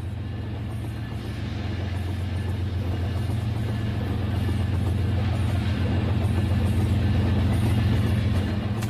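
Toy train running along its track through shallow water: a steady low hum that grows gradually louder as it approaches.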